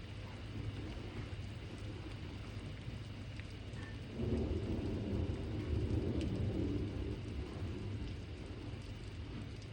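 Rain falling steadily during a thunderstorm, with a roll of thunder that starts suddenly about four seconds in and fades over the next few seconds.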